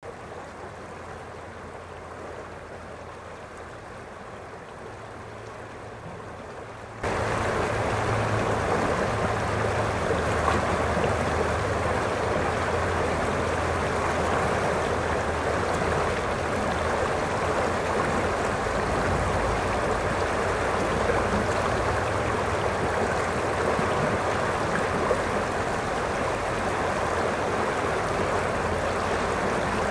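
River water rushing steadily over a shallow rocky riffle. It is quieter for about the first seven seconds, then jumps suddenly to a louder, fuller rush that holds steady.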